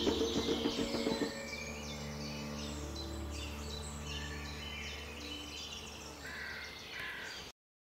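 Wild birds chirping and singing over a low steady hum, after a rhythmic music passage stops about a second in. Two louder, lower calls come near the end, then the sound cuts off.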